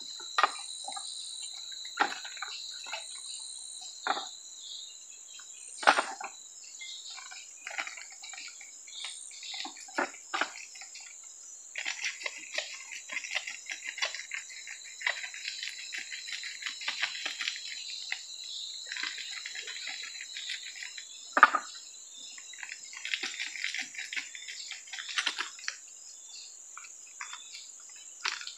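Insects droning steadily in the forest, with irregular splashes, knocks and scrapes of hands and a knife working fish in shallow river water; two sharper knocks stand out.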